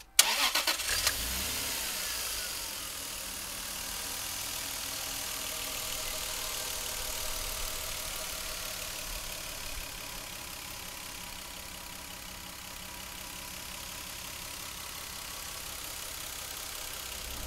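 Toyota 2JZ-GTE twin-turbo inline-six with a few sharp loud bursts in the first second. Its level eases down over the next couple of seconds, and it then runs at a steady idle.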